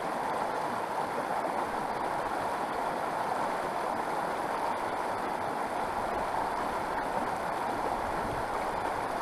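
A fast, shallow mountain creek rushing steadily over rocks.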